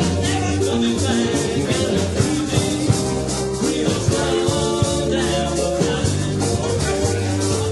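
Live band playing an upbeat song with a steady drum beat and a sung vocal.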